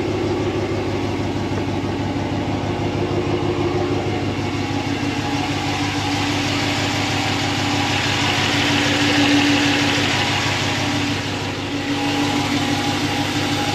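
Ram pickup truck's engine idling steadily, heard from underneath the truck, with a hiss that swells and fades about halfway through.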